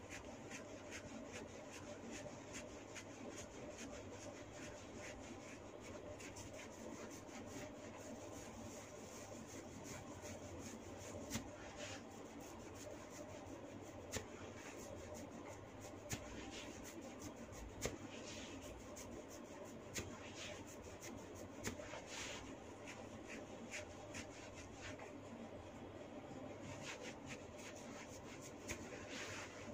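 Faint rubbing of hands massaging skin, with a few short, soft clicks scattered through it.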